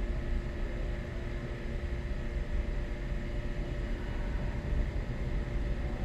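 Steady low rumble and hum of an underground subway station's background noise, with a faint steady tone running through it and no distinct events.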